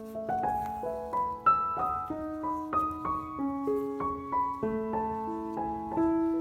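Background piano music: a gentle melody of single notes with a slow accompaniment.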